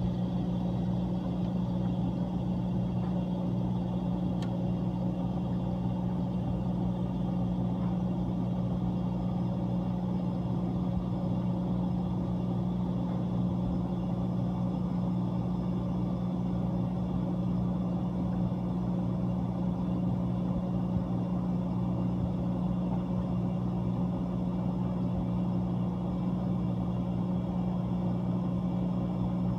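Whirlpool ice machine's refrigeration compressor running with a steady hum.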